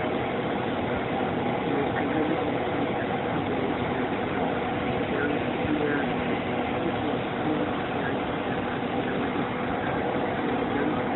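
A steady, even mechanical hum with no breaks or changes.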